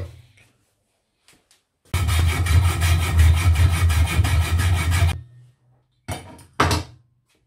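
Hacksaw cutting a metal threaded bar clamped in a vice, rapid back-and-forth strokes for about three seconds from about two seconds in, then stopping. Two short knocks follow near the end.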